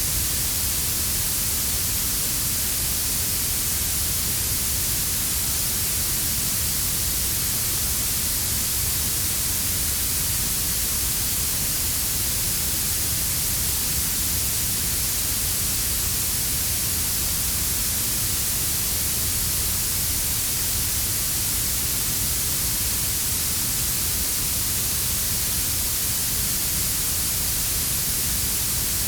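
Synthetic blue noise: a steady, bright hiss strongest in the highest treble, mixed with a quieter low brown-noise rumble underneath. It does not change at all.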